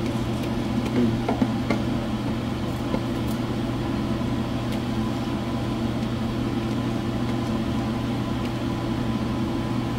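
Steady low mechanical hum, like a kitchen appliance fan running, with a few faint light taps as soaked rice is tipped and scraped from a plastic bowl into a pan of boiling dal.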